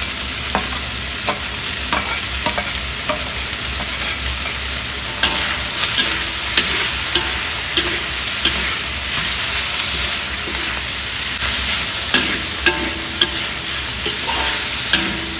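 Meat, chillies and salted mustard greens sizzling in a hot wok as a spatula stirs and tosses them, the spatula scraping and clicking against the wok at irregular intervals.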